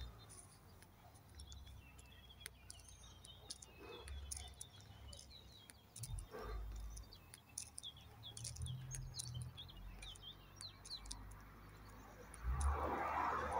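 Small birds chirping in many short, high notes, faint over a low background rumble. Near the end a louder, broader noise sets in.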